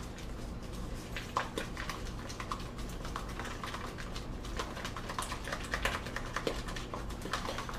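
Spoon stirring protein powder into plain Greek yogurt in a bowl: a run of quick, irregular clicks and scrapes of the spoon against the bowl.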